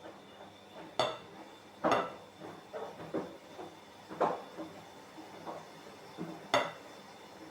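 Kitchen utensils knocking and clinking against dishes: a handful of separate sharp knocks a second or two apart, the loudest near the end.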